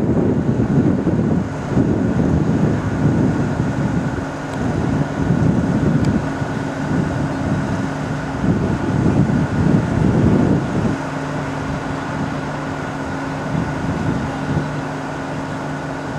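Airbus A319's IAE V2500 turbofan engines on final approach and landing, a steady jet whine over a low rumble. Wind buffets the microphone in gusts, easing after about eleven seconds into a steadier low hum.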